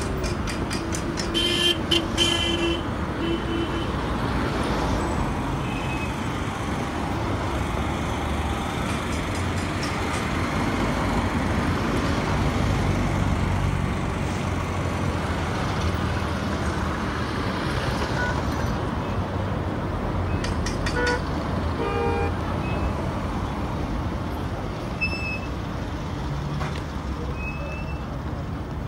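Steady street traffic: car engines running past, with short car-horn toots in the first few seconds and again about three-quarters of the way through.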